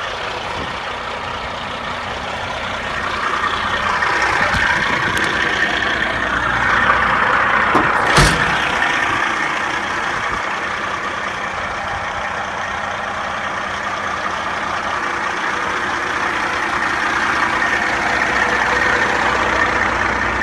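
Cat 3406 inline-six diesel in a Western Star truck idling steadily, with one sharp knock about eight seconds in.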